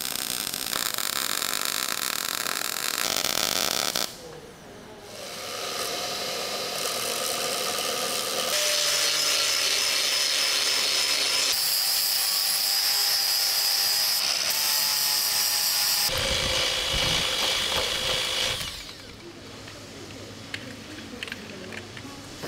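Metalworking heard in quick cuts: a MIG welder crackling and hissing, then an angle grinder running with a steady high whine as it grinds steel. A short stretch of heavier low knocking comes about two-thirds of the way through, and quieter small clicks near the end.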